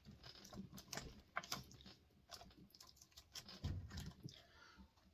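Faint, scattered metallic clicks and rattles of a chainsaw chain being worked by hand onto the guide bar and sprocket, a little louder about three and a half seconds in. The 56-link chain is a tight fit, a link short for this bar.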